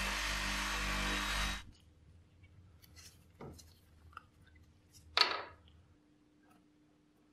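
Bench grinder with a felt buffing wheel running steadily while a screw spun in a cordless drill is polished against it, cutting off about a second and a half in. Then faint handling ticks and one sharp click about five seconds in.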